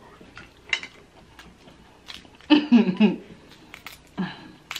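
A few sharp clicks and cracks of Dungeness crab shell being picked apart by hand, with a short murmured voice sound about halfway through.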